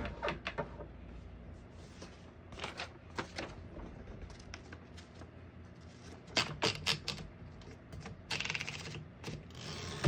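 1957 Remington Quiet-Riter portable typewriter being loaded with paper: scattered light clicks and clatter from the carriage and paper, louder clicks about six seconds in, then a fast run of ratcheting clicks near the end as the platen knob is turned to roll the sheet in.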